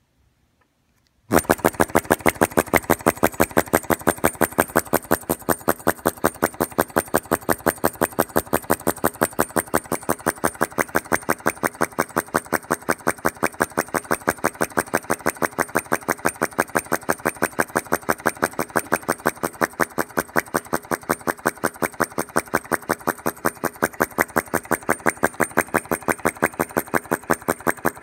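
Home-made flame-eater (vacuum) engine of Philip Duclos's design running steadily: an even, rapid train of sharp clicks, several a second, one beat with each draw of the flame. The sound starts suddenly about a second in.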